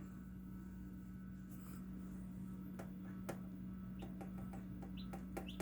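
Hatching chick stirring in its shell: faint scratches and scattered clicks over a steady low hum, with two short high peeps near the end.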